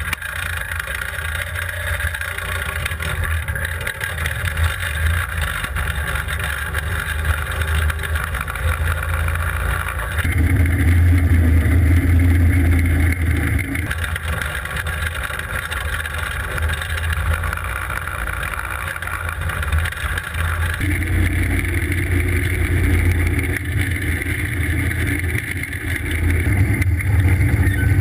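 Go-kart's small engine running as the kart drives, getting louder under throttle for a few seconds about ten seconds in and again from about twenty seconds in.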